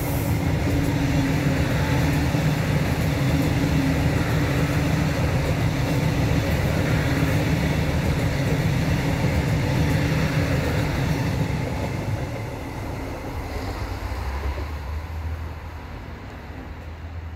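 Dublin DART electric commuter train passing close by, a loud steady rumble of wheels on rail with a steady low hum. The sound fades from about twelve seconds in as the train draws away.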